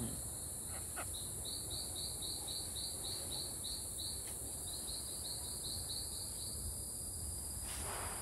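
Rainforest insect chorus: a steady high-pitched drone, joined from about a second in by a run of short repeated chirps at about three a second that stops near the end.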